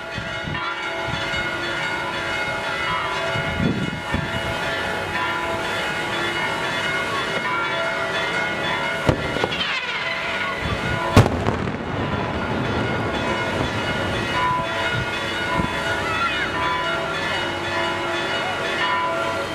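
Church bells ringing a continuous peal, with bangs from daytime fireworks: one shot about nine seconds in and a louder, sharp bang about two seconds later.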